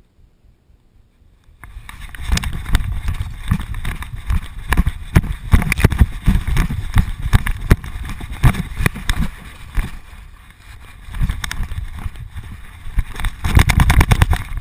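A dog running and bounding through dry grass and fallen leaves with a GoPro camera strapped to its back. It is fairly quiet for the first second and a half, then come rapid, irregular thumps from the bouncing camera mount, with rustling from the dog's paws and body in the leaves.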